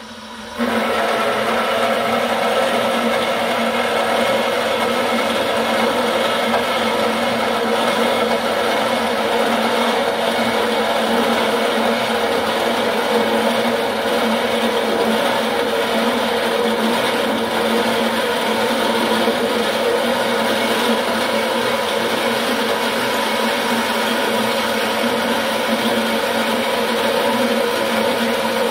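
Servo-motor-driven Craftsman 14-inch band saw cutting 3/16-inch mild steel with a Lenox Die Master 8/12 blade, starting about half a second in. The blade runs slowly at about 300 feet a minute, the speed specified for cutting this steel.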